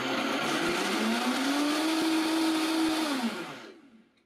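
Vitamix blender motor running at high speed, puréeing hot turkey drippings and a roasted potato into gravy. Its pitch climbs over the first two seconds and holds. It drops about three seconds in as the blender is switched off, and the sound dies away.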